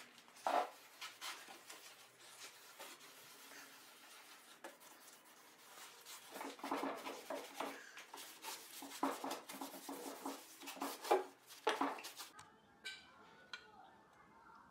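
Cloth rag wiping a liquid over the bare wooden panels of a cabinet: irregular runs of short rubbing strokes, busiest in the middle and back half, with a single sharp knock about half a second in. The rubbing gives way to a few faint clicks near the end.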